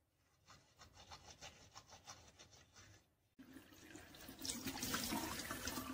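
Toothbrush scrubbing teeth in quick, faint strokes. After an abrupt cut a little past the middle, a washbasin tap runs water steadily over cupped hands into the sink.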